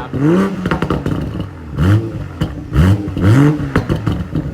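2020 Toyota Supra's engine blipped up four times in quick succession, each rev rising sharply in pitch and dropping back, with exhaust crackles and pops between the revs.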